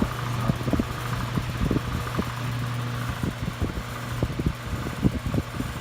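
Vintage Windsor (Lakewood-made) Model K-10 10-inch table fan running at its single speed: a steady motor hum with scattered light knocks. The motor has a bit of vibration, which the owner puts down to a blade that might be out of balance.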